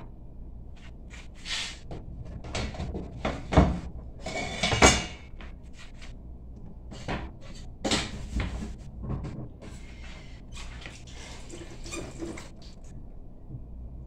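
Kitchen counter work: irregular knocks, clatter and short scrapes of utensils and food being handled, with a sharper knock about three and a half seconds in and a brief rush of noise just before five seconds.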